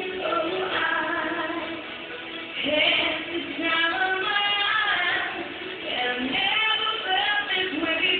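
Stage performers singing a song with musical accompaniment; the voices sound like women's or young people's.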